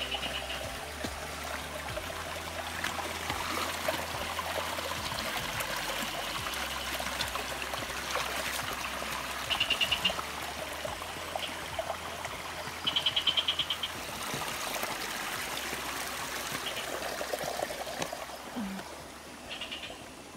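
Small stream trickling and splashing over rocks. Short bursts of a rapid pulsing trill, like a frog's call, cut in at the start, about ten and thirteen seconds in, and again near the end.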